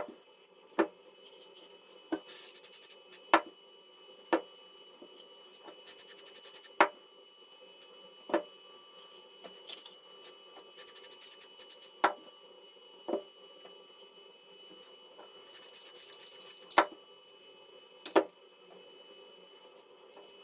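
Sharp irregular taps, roughly one every second or two, as a tube-shaped electrostatic flock applicator is tapped by hand to sift fine grass fibres onto a model tree. Under the taps runs a faint steady whine, with short spells of soft rustling hiss.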